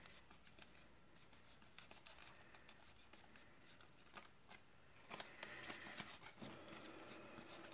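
Faint rustling and soft crackling of stiff printed cardstock as a die-cut paper lantern is handled and its folds worked by hand. The rustling grows a little louder from about five seconds in.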